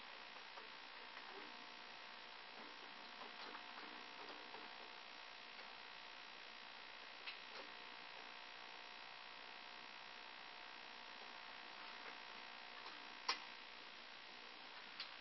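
Near silence: steady low hiss and hum of an empty room, with a few faint clicks, the sharpest one near the end.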